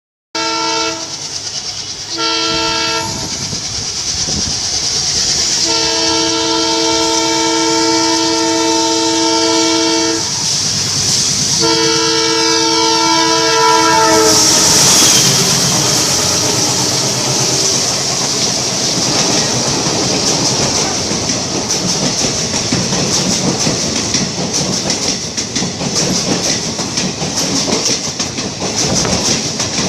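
A WDP3A diesel locomotive's horn sounds four times: two short blasts, then two long ones, the last dropping in pitch as the engine passes. The express then runs through at speed, its coaches rushing by with a steady clickety-clack of wheels over rail joints.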